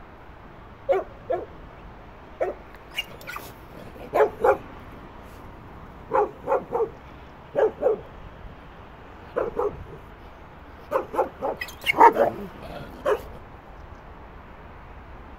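A dog barking in short single barks and quick pairs, about twenty in all, with the loudest cluster about twelve seconds in.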